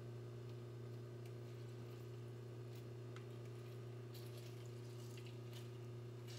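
A lemon squeezed by hand over a slow cooker: faint wet squeezing and a few drips of juice, most of them about four to six seconds in, over a steady low electrical hum.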